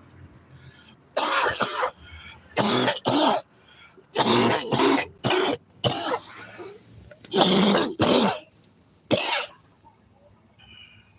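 A man's coughing fit, with repeated coughs, several in quick pairs, over about eight seconds. It is a smoker's cough from inhaling blunt smoke too deeply.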